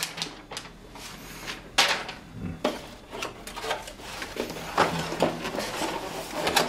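Door lock hardware being unpacked: cardboard and plastic packing rustling, with a few sharp clicks and knocks as the parts are handled, the rustling getting busier in the last couple of seconds.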